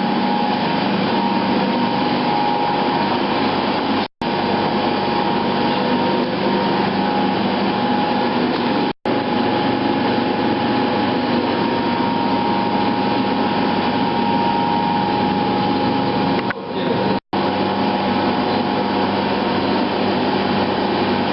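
Electric fan running steadily: air noise with a constant low hum and a higher whine over it. The sound cuts out abruptly three times.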